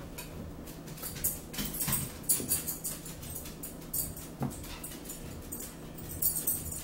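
Plastic squeeze bottle of tartar sauce being shaken and squeezed, sputtering and squelching in a run of short, irregular bursts.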